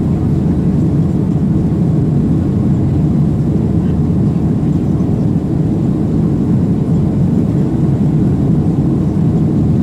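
Steady low cabin noise of a Boeing 737-800 in the climb after takeoff: its CFM56-7B turbofan engines at climb power and the airflow over the fuselage, heard from a window seat over the wing.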